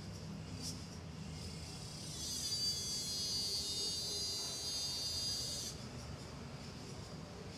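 A cicada buzzing, high and steady, starting about two seconds in and cutting off suddenly after about three and a half seconds, over a quiet low rumble.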